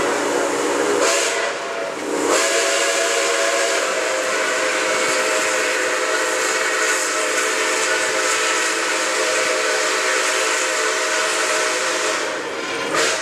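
Steam locomotive whistle blowing for a road grade crossing, several tones sounding together as a chord. A shorter blast breaks off about two seconds in, then one long blast is held for about ten seconds and stops just before the end.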